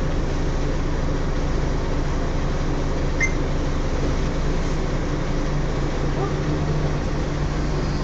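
Volvo Olympian double-decker bus running, heard from inside on the upper deck: a steady low drone from the engine and driveline that strengthens a little near the end as the bus moves off. The drone is the strange differential noise the video was made to capture.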